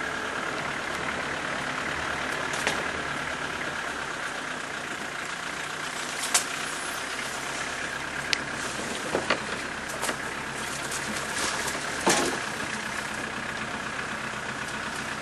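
Vehicle engine running steadily at low speed on a rough dirt track, with several sharp knocks and rattles scattered through it as the vehicle jolts over the ruts.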